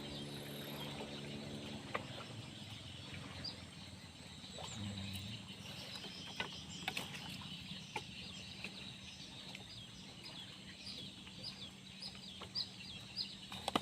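Faint chickens clucking, with short high chirps, a low steady hum and a few sharp clicks.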